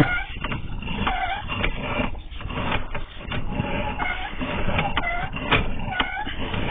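Sewer inspection camera's push cable being pulled back through the pipe, rubbing and rattling, with repeated short squeaks every half second or so.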